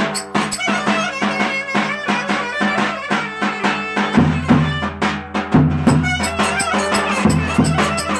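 Traditional Turkish dance music (oyun havası) played loud, a melody over a fast, steady drum beat.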